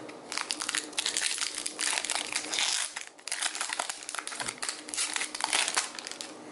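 Foil wrapper of a Pokémon trading-card booster pack crinkling as it is torn open and pulled apart by hand: a dense, rapid crackle with a brief lull about three seconds in.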